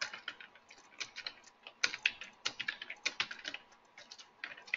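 Typing on a computer keyboard: a quick, irregular run of key clicks with a couple of short pauses.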